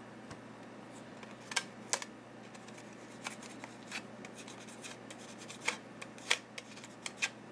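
Quiet, scattered clicks and crinkles of fingers handling a foam control surface and working packing tape along its hinge edge.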